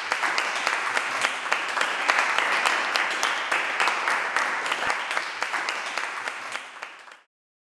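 A small group of people applauding, with dense hand claps, fading out near the end and then stopping.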